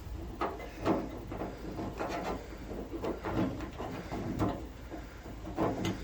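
Replacement door lock cylinder being worked into its hole in a pickup truck's door skin: a series of irregular small metal knocks and scrapes.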